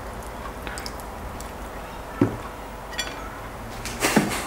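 A lemon wedge squeezed by hand, with a faint squish and drip of juice. A soft knock comes about two seconds in, and a brief rustle with a thump near the end.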